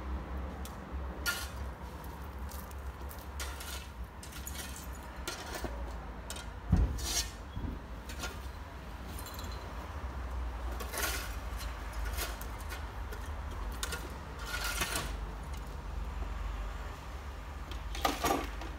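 Long-handled broom sweeping gravel and litter across a dirt yard: irregular scratchy strokes with a light clink of debris, over a steady low rumble, and a dull knock about seven seconds in.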